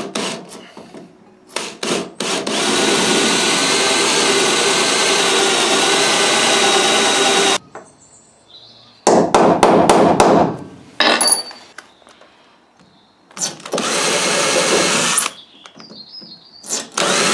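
Cordless drill boring out spot welds in a car's steel B-pillar, a steady motor whine running for about five seconds, then again for about two seconds later on and starting once more near the end. Between the runs there is a quick cluster of sharp knocks.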